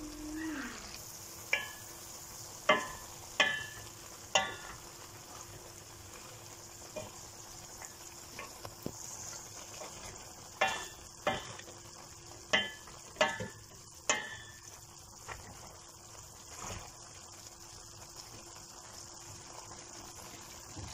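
A wooden spoon stirs peppers in a stainless steel pot of simmering vinegar-and-oil brine, over a steady low sizzle. The spoon knocks sharply against the pot in two runs of four or five knocks, the first starting about a second and a half in and the second about ten seconds in, with a few softer taps later.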